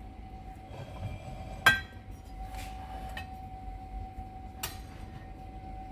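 Glass bottles of liquor clinking against each other as they are handled in a cabinet: one sharp ringing clink about two seconds in, another near the end, and a few lighter knocks between.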